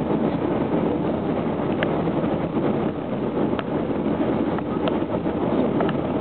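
Steady road and engine noise heard from inside a moving vehicle, with a few faint clicks.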